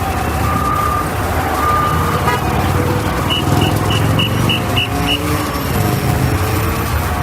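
Ambulance siren in heavy city traffic. Early on it sounds as a two-tone hi-lo wail. Around three seconds in it switches to a quick run of short high beeps, about four a second, over a steady rumble of engines and tyres.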